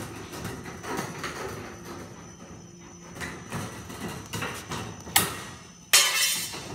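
Aviation tin snips cutting thin Colorbond sheet-steel ridge flashing in a run of short crunching bites, with a sharp click about five seconds in and a louder rasping burst near the end.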